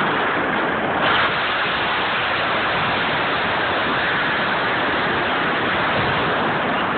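Wooden building's roof and timbers collapsing under a demolition excavator: a loud, continuous rushing crash of falling debris, a little louder about a second in.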